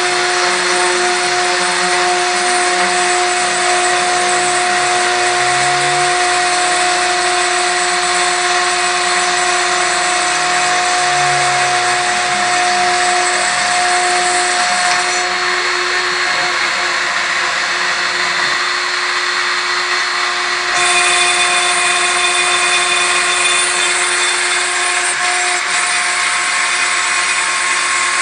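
CNC router spindle running with a steady whine while a 2 mm end mill cuts 3 mm acrylic sheet, over a continuous hiss of cutting.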